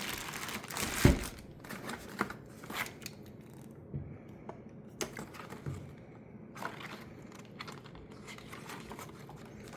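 Packaging being handled and unwrapped: irregular crinkling and rustling with scattered clicks and knocks, the sharpest knock about a second in.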